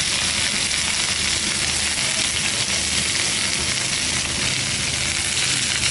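Langoustines and scarlet prawns frying in hot olive oil in a paella pan: a steady sizzling hiss.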